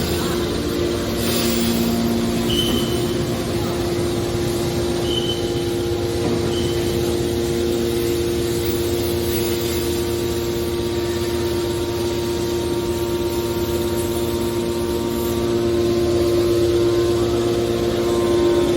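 Hydraulic metal baler's power unit running with a steady hum on one constant pitch, with a few brief high chirps in the first few seconds.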